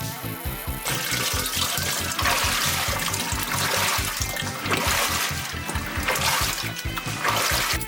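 Water rushing and spraying inside a running household washing machine, starting about a second in and growing louder, over background music with a steady beat.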